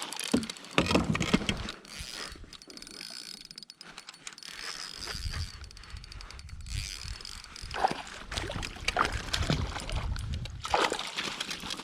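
Spinning reel being cranked to bring in a small bass, with a run of clicks and knocks and low rumbling handling noise against the kayak.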